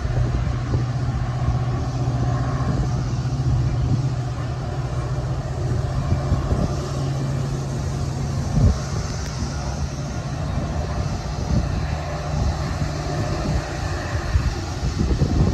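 Metra bilevel commuter coaches rolling past on the track: a steady rumble of the passing train with a low droning hum that fades out about three quarters of the way through, and a single sharp knock a little past halfway.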